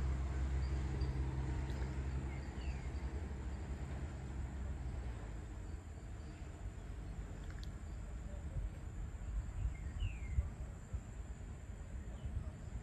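Evening countryside ambience: a low distant engine rumble fades out over the first few seconds. A bird gives two short falling chirps, one a few seconds in and one later, over faint insect chirping.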